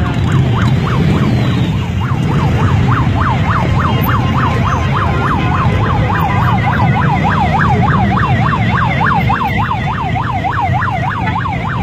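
Police siren on a fast yelp, sweeping up and down about four times a second, with a second higher-pitched yelp joining about halfway through, over the low rumble of many motorcycle engines running.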